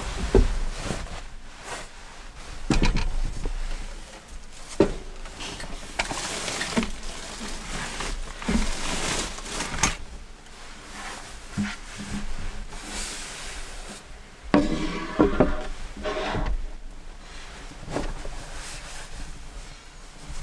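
Fabric rustling as a thick padded blanket and a sleeping bag are handled and spread out on the floor, with scattered knocks and thumps from a wooden table board being moved and set down. A busier run of knocks and rustling comes about two-thirds of the way in.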